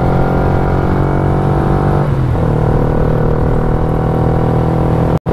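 Yamaha Y15ZR's freshly rebuilt single-cylinder four-stroke engine running under way. Its pitch dips a little about two seconds in, then holds steady. The sound cuts out for an instant near the end.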